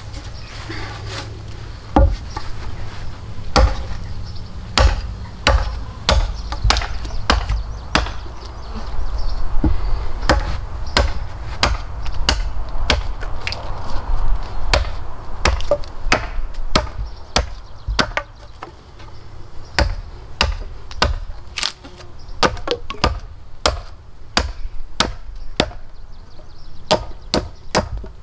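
Repeated sharp blows of a hand tool striking wood, at an uneven pace of about one a second that quickens to around two a second near the end.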